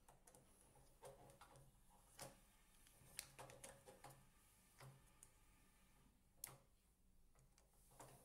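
Faint scattered clicks and taps from a radiator's control circuit board being turned over and handled with a small hand tool, a few sharper than the rest.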